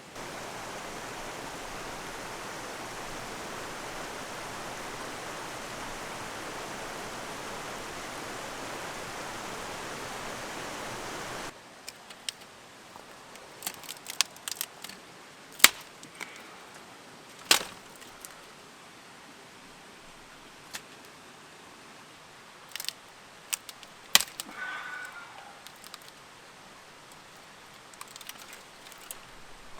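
Steady rushing of a river for about eleven seconds, then an abrupt cut to a quieter scene with scattered sharp cracks and knocks, a few of them loud.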